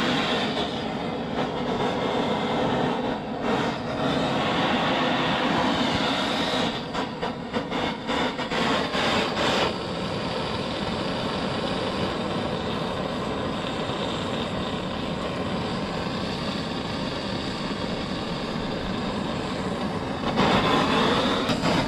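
Gas soldering torch burning with a steady roar while a copper pipe joint is heated for soft soldering.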